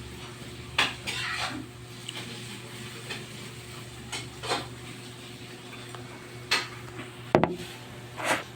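Fork and spoon clinking and scraping against a plate while eating, about six separate clinks, with one heavier knock near the end, over a low steady hum.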